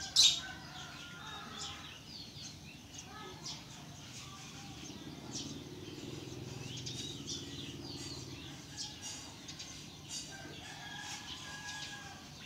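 A metal spoon stirring and clinking in a ceramic bowl of shrimp salad, with one sharp clink just after the start. Chickens cluck faintly in the background.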